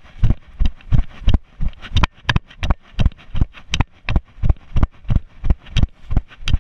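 Running footfalls on grass, a steady beat of about three thumps a second, each one jolting a body-worn camera.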